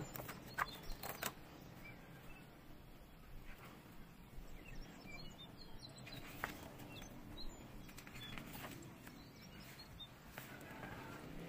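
Pages of a large softcover photobook being handled and turned: soft paper rustles and light taps, several close together in the first second and a few more later. Faint bird chirps in the background.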